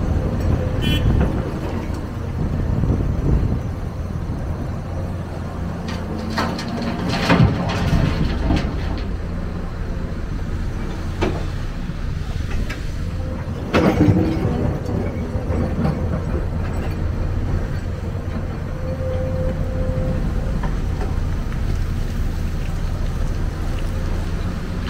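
Hyundai crawler excavator's diesel engine running steadily while it works, with a few sharp knocks and clatters from the bucket and dirt, loudest about seven and a half and fourteen seconds in.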